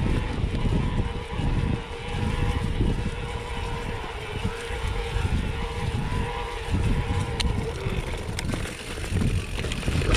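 Mountain bike rolling downhill over a grassy dirt track: tyre rumble and gusty wind buffeting the microphone, with a faint steady hum underneath and a few light ticks from the bike.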